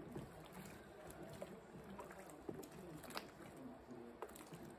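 Faint sloshing of hot water and wooden beehive frames knocking together as they are lifted out of a boiling tank of washing-soda solution, with a few sharp knocks about halfway through and near the end.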